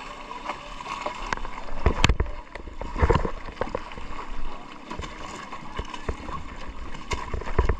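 Water sloshing and lapping against the hull of a small outrigger boat, with wind on the microphone and several sharp knocks against the boat, the loudest about two and three seconds in and another near the end.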